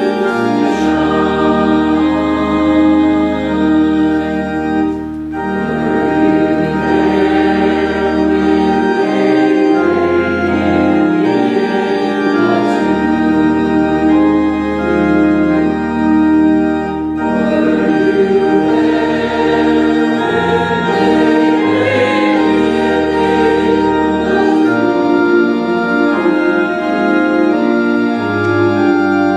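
Organ playing a hymn in slow held chords with deep bass notes, a congregation singing along.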